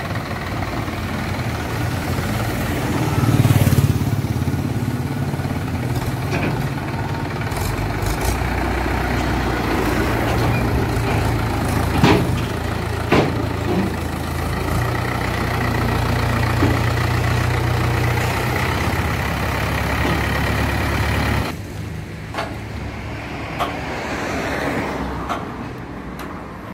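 Mahindra 475 DI tractor's diesel engine running steadily as the tractor drives up onto a steel recovery-truck flatbed, with a few sharp knocks from the deck. The engine sound cuts off about three quarters of the way through, leaving quieter clanks.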